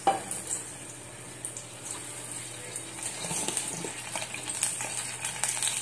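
Steady hiss of a gas stove burner heating cooking oil in a steel pot, with faint scattered crackles from the warming oil.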